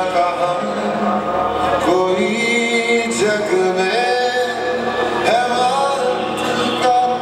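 Music with a man singing long held notes that step up and down in pitch, over a steady accompaniment.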